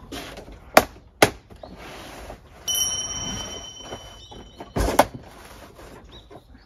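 Gear being loaded into a kei-truck camper shell: two sharp knocks about a second in, a stretch of rustling with a steady high-pitched tone for about two seconds, then a heavy thump about five seconds in.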